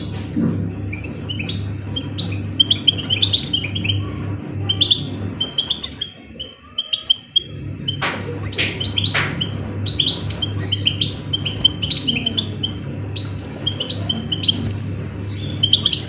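Small caged finches chirping in short, repeated high calls, with a couple of sharp flutters and knocks as a goldfinch flies across the cage about halfway through. A steady low hum runs underneath.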